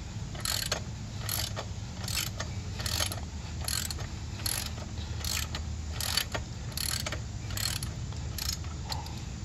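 Socket ratchet wrench clicking on each back-swing, about one burst every 0.8 s, as a bolt is run into a motorcycle's rear drum-brake backing plate.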